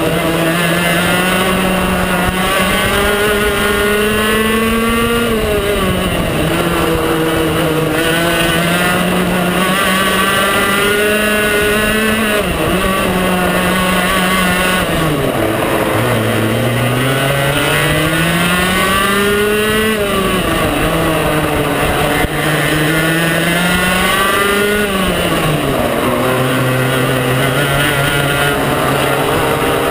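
Onboard sound of a 125cc two-stroke TaG racing kart engine under hard acceleration. Its pitch climbs steadily and then drops sharply several times as it lifts off into corners, dipping lowest about halfway through before winding back up.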